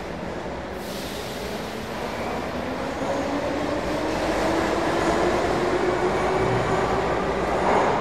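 Moscow metro train at a station platform, its whine rising slowly in pitch and growing louder over the last several seconds, over a steady rumble.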